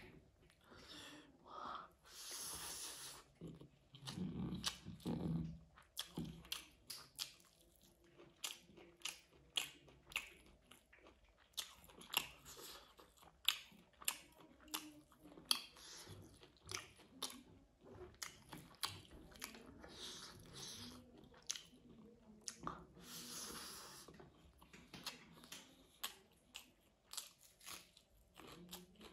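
A person eating rice and curry by hand, chewing with frequent wet smacks and sharp mouth clicks.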